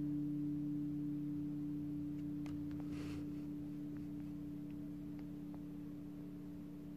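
A held low musical note ringing on and slowly fading out, like the last note of a song dying away. A few faint clicks and a brief soft rush come about three seconds in.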